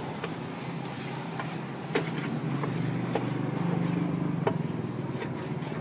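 Metal spatula scraping and clicking against a large flat wok as noodles are stir-fried, a few sharp clicks scattered through. Under it runs a steady engine hum that swells about three seconds in and eases off again, as of a passing vehicle.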